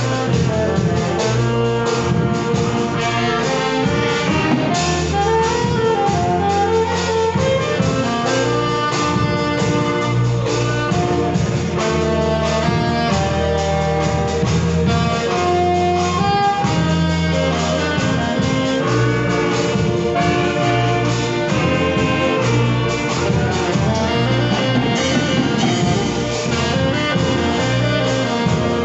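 A group of saxophones playing a gospel tune together in sustained, melodic lines, with a drum kit keeping a steady beat underneath.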